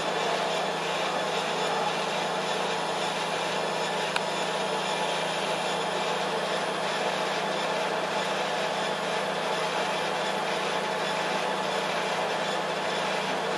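A 3D subsurface crystal laser engraving machine running: a steady mechanical hum with a constant low drone, and a single sharp click about four seconds in.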